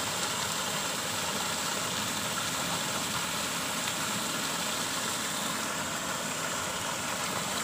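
Steady rushing of a small waterfall and the river, with a faint high steady tone above it.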